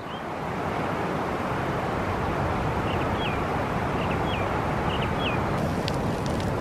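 Steady rushing outdoor ambience of wind and flowing water that fades in over the first second. A small bird gives short chirps about three times in the middle, and there are a few faint ticks near the end.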